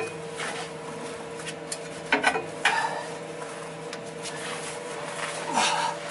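Metal clinks and scraping from a ratchet wrench being worked on a suspension bolt under a truck, a few sharp clicks scattered through, over a steady hum.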